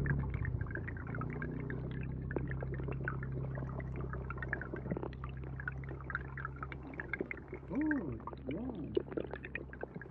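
Stream water heard underwater: a steady low rumble of flowing water under many small clicks and crackles. About eight seconds in come two short sounds that rise and fall in pitch.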